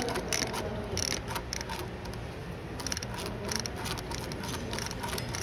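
Irregular light clicks and rattles of hand tools and metal parts being handled, over a low steady background hum.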